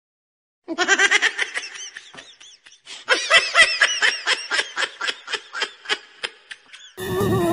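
Laughter: a quick, high-pitched string of "ha-ha" syllables in two runs, the first starting about a second in and the second about three seconds in, trailing off; music comes in near the end.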